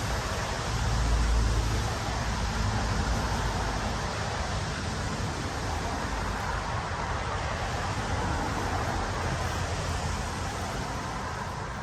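Wind buffeting the microphone: a steady rushing noise with a stronger low gust about a second in.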